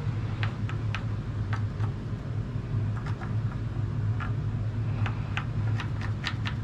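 Felt marker drawing on bare wood, about a dozen short, irregularly spaced scratchy strokes, over a steady low hum.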